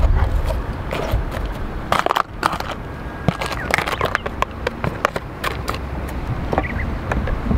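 Chopsticks scraping and tapping against a plastic tray and the sandwich-maker plate as chunks of frozen food are pushed in: irregular clicks and crackly rustles over a low steady rumble.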